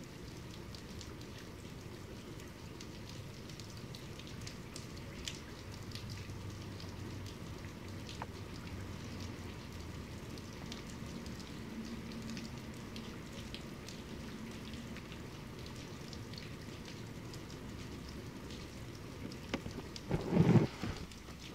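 Steady medium-to-heavy rain falling on a surface, with scattered individual drop ticks. Near the end comes one brief, loud, low boom.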